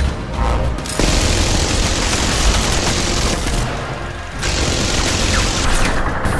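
Multi-barrel rotary machine gun firing in long, continuous bursts, starting about a second in, with a short letup around the middle, over deep booms.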